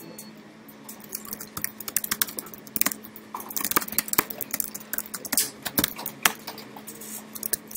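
Typing on a computer keyboard: an irregular run of quick key clicks, busiest in the middle, over a faint steady hum.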